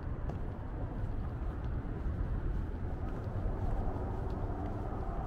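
Steady road traffic noise from a busy multi-lane street, a continuous low rumble without a single close pass-by.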